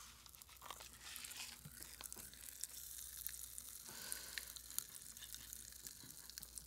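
Pop Rocks popping candy crackling in the mouth: faint, scattered tiny snaps and pops as the candy's trapped carbon dioxide bursts out while it dissolves.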